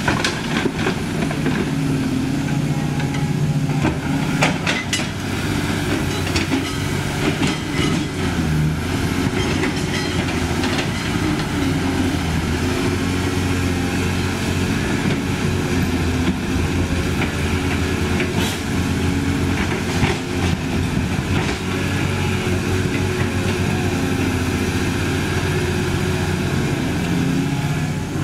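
CAT 320D hydraulic excavator's six-cylinder C6.4 diesel engine running steadily under working load as the machine swings and digs, with scattered metallic clanks and knocks from the bucket and its load.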